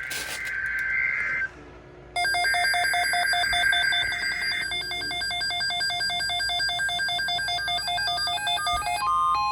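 Emergency Alert System activation on NOAA Weather Radio: warbling two-tone digital header bursts, then a weather radio's alert beeping in a rapid repeating pattern from about two seconds in. The steady 1050 Hz warning alarm tone sets in near the end. A short click is heard at the very start.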